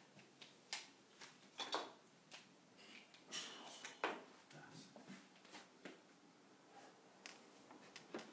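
Faint, scattered clicks and knocks from a person moving about and handling things, irregular and roughly half a second to a second apart, with a brief rustle about three seconds in.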